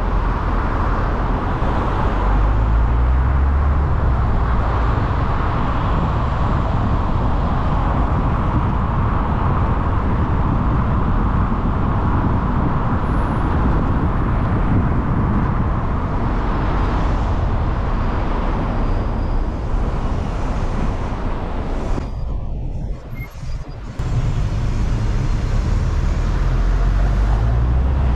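Car driving through city traffic: steady road and engine noise. It turns briefly quieter and muffled a few seconds before the end.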